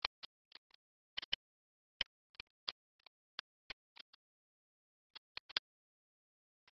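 Stylus tapping and clicking on a drawing tablet: quick, irregular sharp clicks, with a pause of about a second past the middle.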